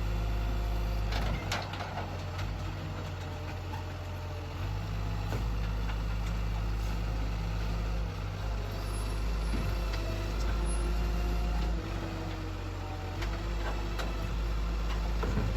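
Garbage truck engine running steadily, with a few sharp knocks and clanks.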